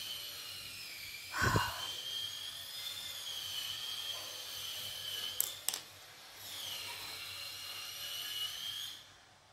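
A high-pitched mechanical whine, like a small motor, that stops with a couple of clicks a little after five seconds in and starts again about a second later; a soft low bump about a second and a half in.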